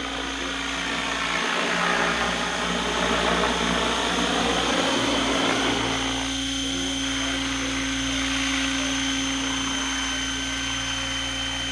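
XLPower 550 electric RC helicopter in flight: the whine of its brushless motor and gears over the drone of the spinning rotor blades. The pitch rises and falls in the first half, then holds steady after about six seconds.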